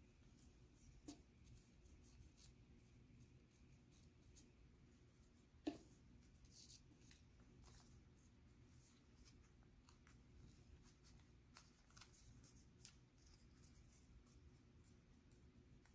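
Very faint rustling and small crinkles of origami paper being handled and folded by hand, with one sharper tap about six seconds in.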